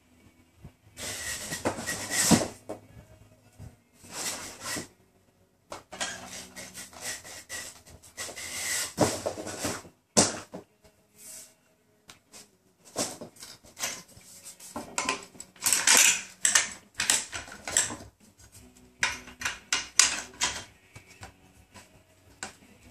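A Weatherby PA-459 pump-action shotgun being handled and lifted from its cardboard shipping box: bursts of scraping, rustling and clicking of the gun against the cardboard and packaging, broken by short pauses.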